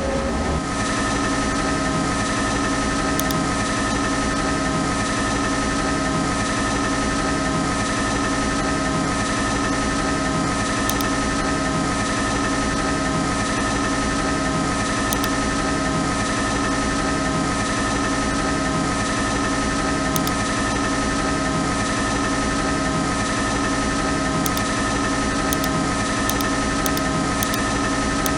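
CNC lathe running steadily, with a steady hum made of several held tones and a low pulse repeating a little under once a second.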